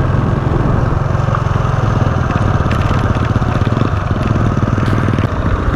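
Motorcycle engine running steadily at low speed, heard close up from the bike as it rides along a rough road.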